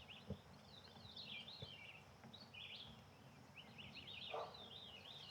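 Small songbirds chirping and trilling faintly in the woods, a steady run of short rising-and-falling phrases, with one soft tap about a third of a second in.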